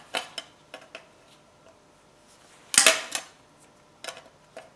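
Homemade hand-lever hole punch snapping through sheet steel: one sharp, loud crack about three seconds in with a short ring after it. Lighter clicks come from the punch's jaws and the metal being handled.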